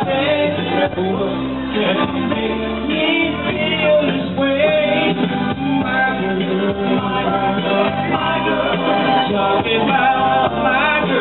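Loud music with a singer, played in a bar.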